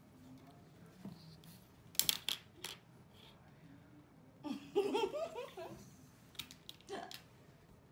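Sharp taps and clicks of a wand toy and a kitten's paws on a stainless steel table, several times. A person laughs briefly about five seconds in.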